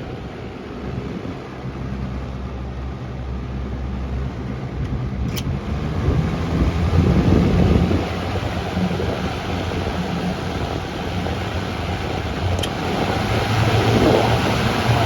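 Lakewood Model 227 electric fan running, its motor humming steadily under the rush of air from the blades; the air noise swells and eases twice, with two faint ticks about five and thirteen seconds in.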